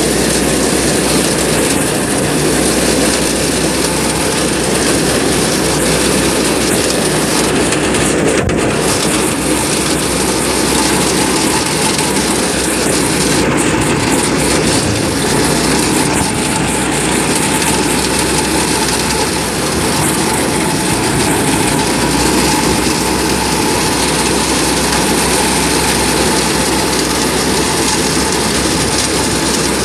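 Off-road go-kart's small engine running steadily under way, mixed with an even rushing noise of wind and tyres on dirt.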